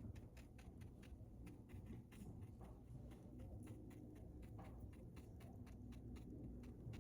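Faint, irregular small clicks and taps, several a second, over a low steady hum.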